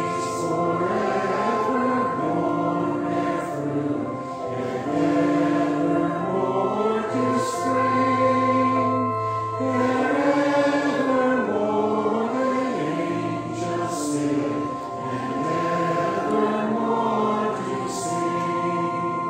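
A congregation singing a hymn together, in slow held notes that move step by step.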